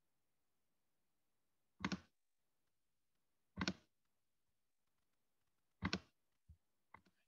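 Computer mouse clicking: three sharp clicks about two seconds apart, each a quick double tap, then two fainter ticks near the end, with near silence in between.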